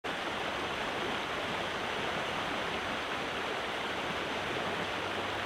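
Shallow stream running and splashing over rocks, a steady rush of water.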